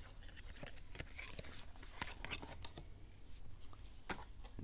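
A tarot deck and its packaging being handled: scattered small clicks, taps and scratchy rustles of card and cardboard.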